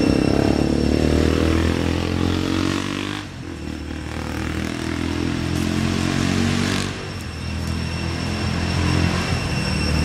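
An engine running, its pitch sliding down over the first few seconds, dropping away briefly about three seconds in, then coming back and shifting in pitch again.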